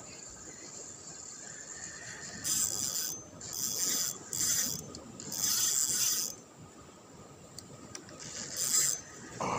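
Spinning reel cranked in about five short bursts, its gears whirring, as a hooked fish is reeled in.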